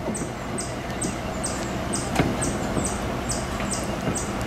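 Pickup truck engine idling with a steady low rumble, under a high chirping that repeats about twice a second. A single light knock comes about two seconds in.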